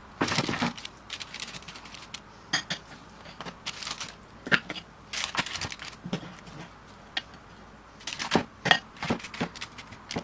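Irregular clinks, scrapes and paper rustles as cookie dough is portioned onto a parchment-lined metal baking tray.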